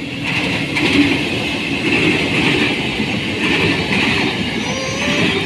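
KRL electric commuter train running, a steady rumble with a hiss that swells and eases, and a faint wavering high whine near the end.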